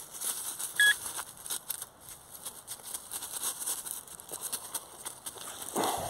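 A single short electronic beep from a metal detector about a second in, over the crackle of dry leaves and rustling backpack fabric. Near the end a spade digs into the leaf litter and soil.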